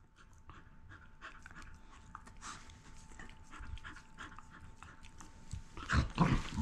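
Two dogs panting and scuffling on bedding during rough play, with louder bursts of scuffling about six seconds in.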